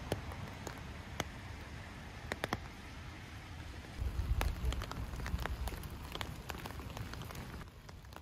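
Rain falling outdoors: an even hiss with scattered drops ticking close to the microphone. About halfway through, the sound steps up, with a low rumble and more frequent drop ticks.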